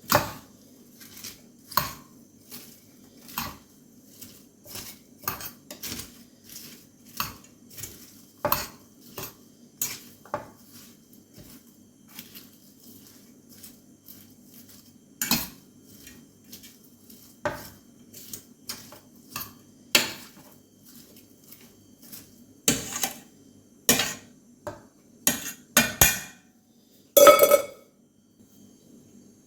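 A utensil knocking and clinking against a cooking pot in irregular sharp strokes, about one a second, coming thicker near the end, over a faint low steady hum.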